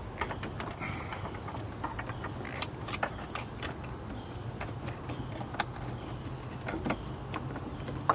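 Light, scattered clicks and rubbing as the power liftgate actuator strut's wiring and rubber grommet are worked out of the hatch frame, over a steady high-pitched drone in the background.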